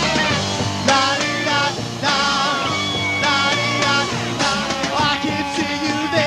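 Rock band playing live, a dense mix of pitched instruments with a steady drum beat.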